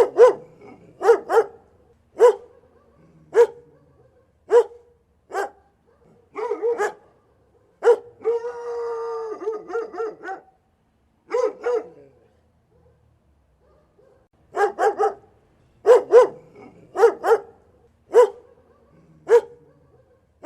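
Dog barking in short single and double barks, with one long drawn-out call about eight seconds in and a brief pause about two-thirds of the way through.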